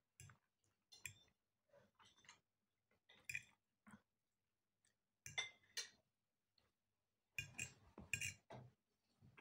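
Close-up eating sounds: a metal fork clinking and scraping against a plate while cutting fried potatoes, with chewing in between. The sounds come in short, scattered bursts, busiest about halfway and again near the end.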